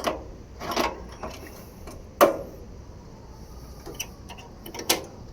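Five sharp metallic clicks and knocks from hood hardware being handled and taken off, the loudest a little past two seconds in.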